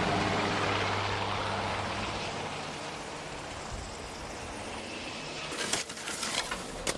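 Aircraft engine noise, loud at first and fading steadily, with a low steady drone under a rushing noise. A few clicks or rattles come in near the end.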